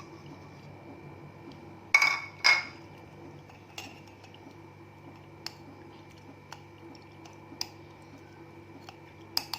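Kitchen utensils clinking against a glass as a steeped herbal drink is strained. There are two sharp clinks about two seconds in, then light taps about once a second and a louder pair near the end, over a steady faint hum.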